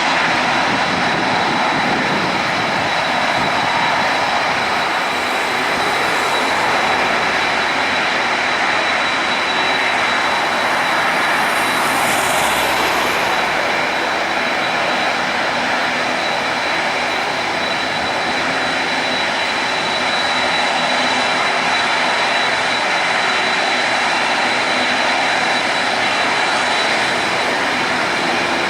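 Boeing 767-300ER's twin jet engines running with a steady, loud noise and a thin high whine throughout.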